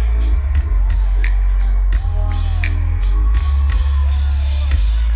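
Live electronic music played loud through a concert sound system, with heavy, steady bass and regularly spaced drum hits, and the crowd whooping over it.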